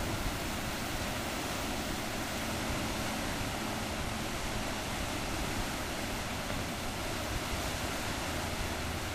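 Steady rushing of whitewater in the Lachine Rapids of the St. Lawrence River, an even, unbroken wash of noise with no separate splashes standing out.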